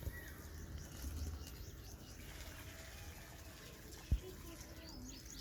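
Faint, high, short cheeps from bird chicks over a low rumble, with a single sharp thump about four seconds in.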